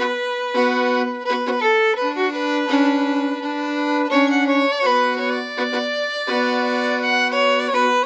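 Background music led by a violin playing a melody of held notes broken by quick trills and short ornamented runs.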